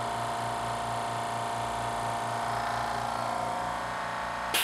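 California Air Tools 2 HP ultra-quiet oil-free air compressor running steadily, a hum with a few held tones, refilling the tank after the regulator has been set. It cuts off suddenly at the very end.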